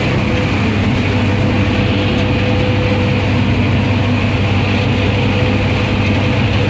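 Claas Mercator 75 combine harvester running under harvesting load, heard from inside the cab: a loud, steady drone of engine and threshing machinery with a constant low hum.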